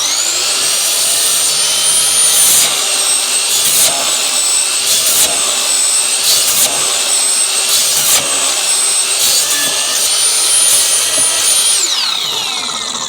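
Ryobi miter saw motor spinning up to a high whine and running at speed while cutting through wood, with repeated surges of noise. Near the end the trigger is let go and the blade coasts down with a falling whine.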